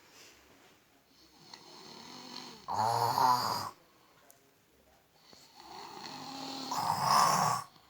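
A sleeping child snoring loudly: two long snores about four seconds apart, each swelling up and then peaking loudly for about a second.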